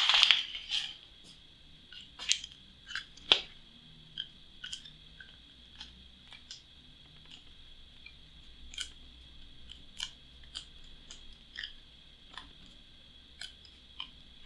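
Printed cardboard map tiles and their packaging being handled: scattered short rustles and light clicks, the loudest cluster in the first second, then sparser taps.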